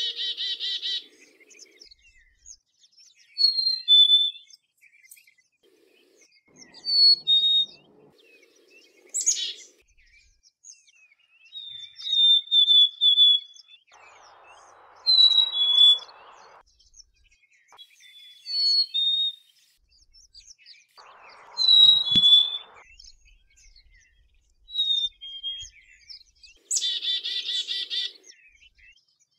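Black-capped chickadee singing its whistled two-note fee-bee song over and over, the first note higher than the second. Near the start and again near the end it gives chick-a-dee calls, a high sweeping note followed by buzzy dee notes. A faint rushing noise comes in twice in the middle.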